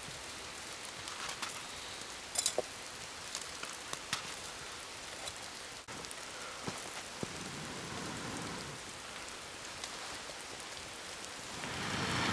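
Split birch-log fire (a Finnish torch) burning under a steel pot of melting snow: a steady hiss with small scattered crackles. A louder rushing noise swells near the end.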